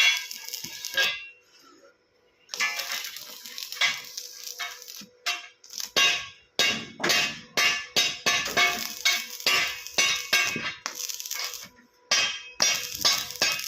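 Welding arc crackling and hissing in spells, broken by short pauses, with sharp metallic clinks and clangs.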